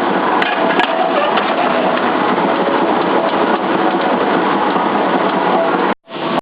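Steady, loud noise of hot forging machinery running, with a couple of sharp metallic clinks in the first second.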